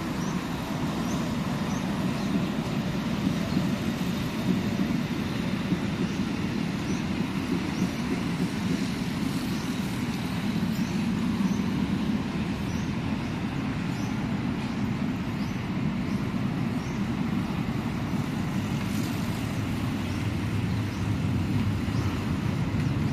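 Steady road traffic noise: a dense low rumble of cars and other vehicles passing on a nearby road, with faint high chirps above it.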